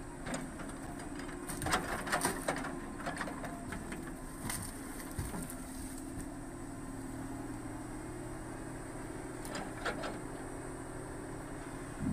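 Excavator log loader's engine running steadily while its grapple handles logs, with scattered wooden knocks and clatters of logs striking each other, a cluster of them about two seconds in and single ones later.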